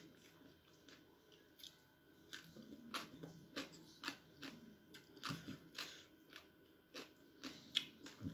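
Close-up mouth sounds of a person eating papaya salad and rice noodles by hand: chewing with wet lip smacks and clicks, a few a second, growing more frequent and louder about two seconds in.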